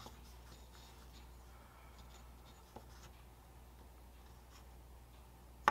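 Faint handling sounds: a small speaker in its plastic enclosure turned in the fingers and rubbing on paper, with a few light clicks and a sharper click at the end, over a steady low hum.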